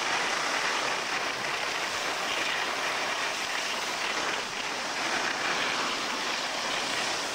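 Steady rushing hiss of skis sliding over snow while skiing downhill, mixed with wind on the microphone.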